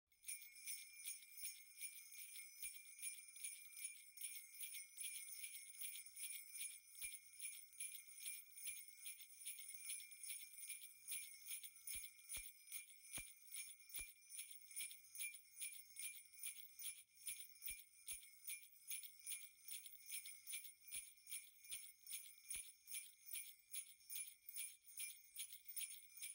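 Sleigh bells (jingle bells) shaken in a steady, even rhythm of about four shakes a second, faint.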